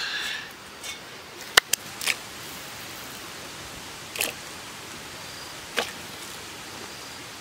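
A metal wok is set down on the hearth stones with a short scrape, followed by a steady hiss and a handful of sharp clicks and taps as garlic cloves and lemongrass stalks are dropped into the water in the pan.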